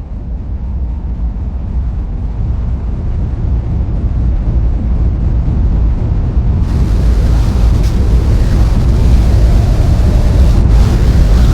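Low, rumbling noise intro to a death metal track, swelling steadily louder, its hiss suddenly turning brighter about halfway through.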